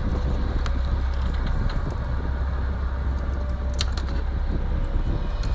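A hobby knife cutting a wooden part free from a laser-cut kit sheet: small scratching strokes and light clicks over a steady low hum.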